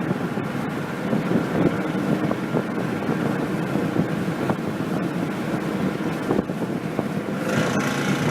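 Steady road, engine and wind noise heard from inside a Dodge Durango driving along.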